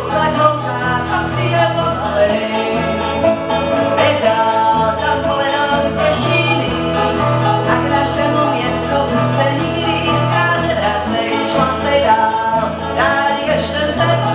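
Live acoustic country music played on banjo, twelve-string guitar and Spanish guitar, a steady strummed and picked accompaniment with a regular low beat.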